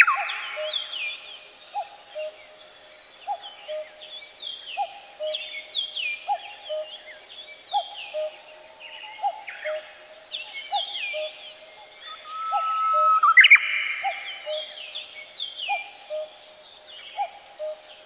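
Several wild birds calling together: a low short note repeats steadily about once a second beneath many quick, high, falling whistles. About thirteen seconds in, a louder rising call peaks sharply.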